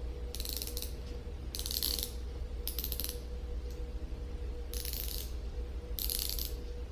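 Pawl of a disassembled air ratchet head clicking over its ratchet teeth as the mechanism is turned by hand, in five short bursts of rapid clicks.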